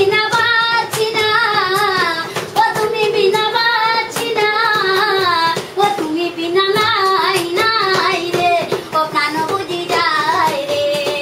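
A high young voice singing a Bengali folk-style song without instruments, with long wavering held notes and ornamented runs. Sharp hand taps or claps sound here and there behind it.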